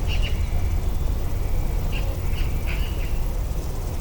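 Several short, high bird calls, one near the start and three more in the second half, over a steady low rumble.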